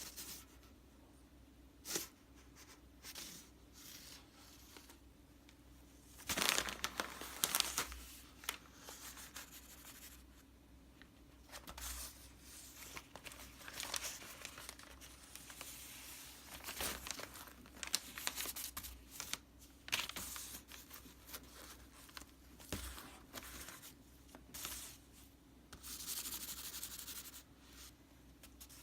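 A cat playing with a crinkly toy: irregular bouts of rustling and crinkling, busiest about six to eight seconds in and again near the end.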